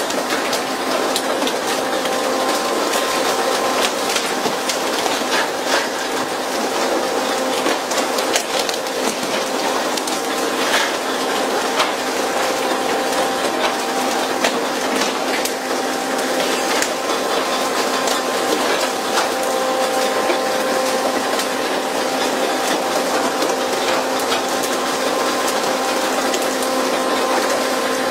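Tuna fishing boat's machinery running: a steady hum at one unchanging pitch under a constant hiss, with continuous rapid clicking and rattling.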